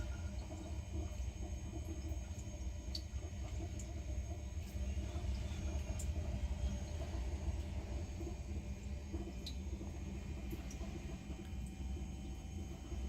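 Steady low rumble of strong typhoon wind, with a few faint ticks.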